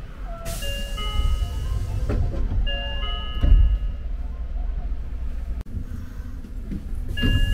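Short electronic chime tune of steady notes on a subway train, playing through twice, over the low rumble of the car. A heavy thud about three and a half seconds in.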